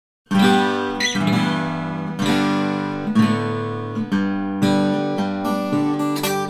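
Collings 002H acoustic guitar played with a slide in country blues style, mixing picked bass notes with slid treble notes. It starts abruptly about a third of a second in.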